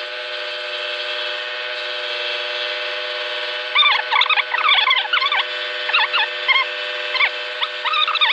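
Scroll saw running with a steady hum. From about halfway, a run of short, high squeals rising and falling in pitch comes in as the blade cuts through the wood.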